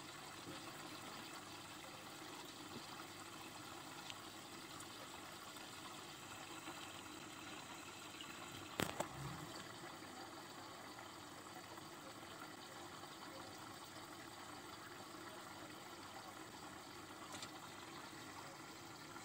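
Turtle aquarium's water and equipment running faintly, a steady low trickle and hum. A single sharp knock about nine seconds in.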